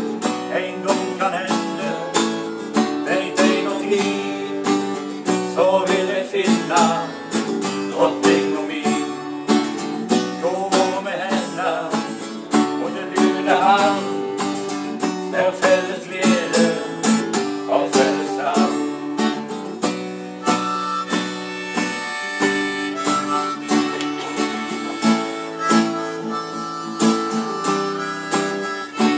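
Acoustic guitar strummed in a steady rhythm, with a harmonica playing over it; in the later part the harmonica holds long notes.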